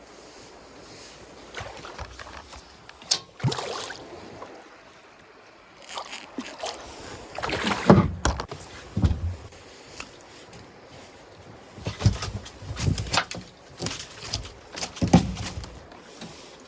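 Small boat on the river: water sounds and irregular knocks and splashes over a steady low hiss, busiest near the middle and again near the end.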